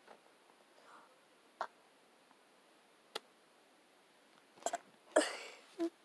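Quiet room with a few scattered clicks and taps, then a short, louder rustling burst about five seconds in.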